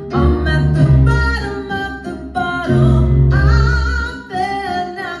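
A woman singing with piano accompaniment and strong, heavy bass notes, played back from a film through the ULTIMEA Nova S50 2.1 soundbar and its subwoofer.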